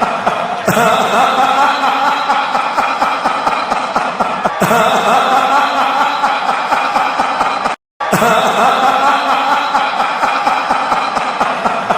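A laughing sound effect played on a loop, restarting about every four seconds, with a brief cut to silence near the middle.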